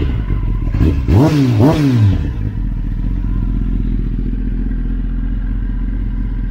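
2021 Kawasaki ZX-10R's inline-four engine through an Akrapovic stainless-steel full race exhaust, warmed up: two quick throttle blips about a second in, each rising and falling in pitch, then it settles to a steady idle.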